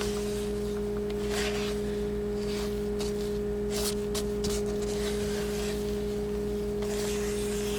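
A steady held background tone, two notes an octave apart, runs throughout. Over it, soft swishes come several times from a spatula scraping and folding flour into beaten egg whites in a mixing bowl.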